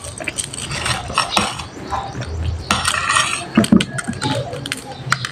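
A metal fork and spoon clinking and scraping against a plate in scattered sharp clicks, with the mouth sounds of someone eating noodles.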